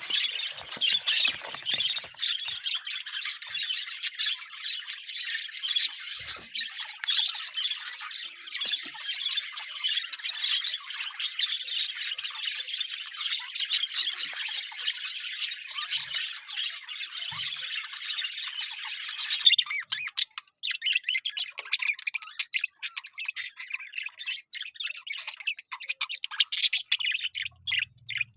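Parrots chattering and squawking in a dense, continuous high-pitched din; about twenty seconds in it thins out into separate sharp chirps and squawks.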